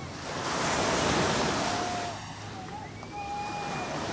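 Small waves breaking and washing up a sandy beach, the surf swelling about a second in and again near the end, with some wind on the microphone.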